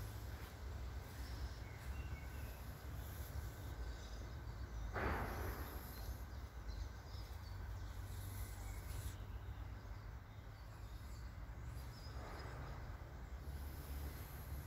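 Faint outdoor background noise with a steady low rumble, broken by a brief rushing sound about five seconds in and a fainter one about twelve seconds in.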